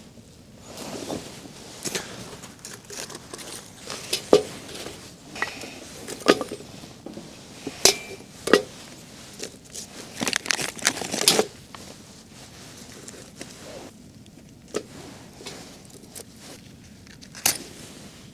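Crinkling and tearing with scattered sharp clicks and knocks, busiest in the middle and sparse toward the end, as a small campfire is laid and lit.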